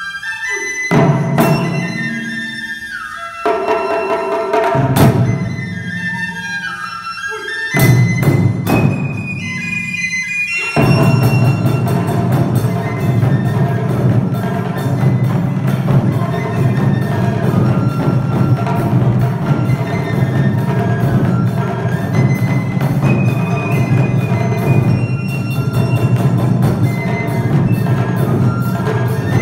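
Japanese taiko drums played with a shinobue bamboo flute melody. For the first ten seconds or so the drums give only a few single strikes under the flute's long, sliding notes. Then they break into fast, continuous ensemble drumming with the flute still playing over it.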